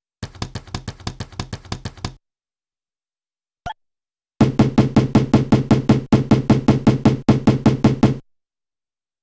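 Tux Paint's Magic-tool sound effects playing straight from the program, with dead silence between them. First comes about two seconds of rapid clicking from the Blocks tool, then a single click as the Bricks tool is picked. Then come nearly four seconds of rapid, regular knocking from the Bricks tool as large bricks are laid down.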